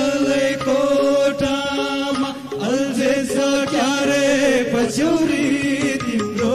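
A group of men singing a Nepali Deusi-Bhailo festival song together in a chant-like style, with guitar accompaniment.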